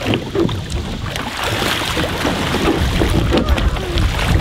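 Water splashing and sloshing around a tandem kayak as a person in the water shoves its stern down and hauls himself up onto the hull, with wind rumbling on the microphone.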